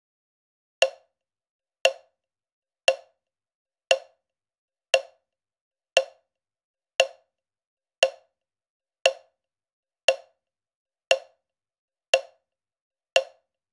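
A wood-block-like percussive click struck evenly about once a second, thirteen times in all: the steady count-in beat of a music track, with silence between the clicks.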